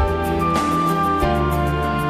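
Instrumental background music, with held notes that change every half second or so.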